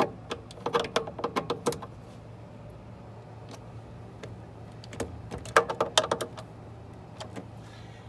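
Screwdriver and fingers working the wiring connectors and terminals inside a gas furnace's control compartment: quick runs of small clicks and taps, one run at the start and another about five seconds in, over a faint steady low hum.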